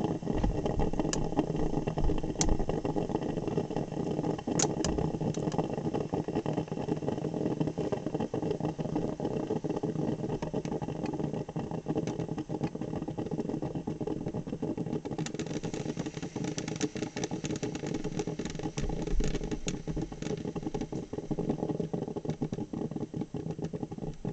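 Black & Decker thermal carafe drip coffee maker gurgling and sputtering as its heater pushes the last of the water through, a steady bubbling with crackling pops that grow denser about fifteen seconds in: the sound of the brew cycle nearly finished.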